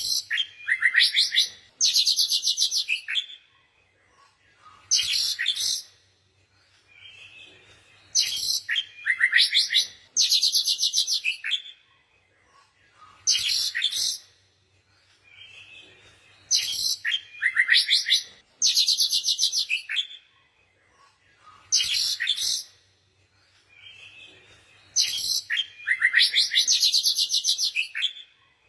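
Small songbirds chirping and singing in bursts of rapid, high-pitched trills, with short pauses between; the same sequence of calls repeats about every eight seconds, as in a looped recording.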